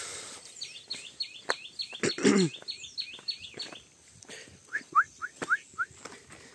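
Birds calling: one sings a fast run of about a dozen high repeated notes, about four a second, and another gives five short rising whistles near the end. A short, louder low call that falls in pitch cuts in about two seconds in, over scattered clicks.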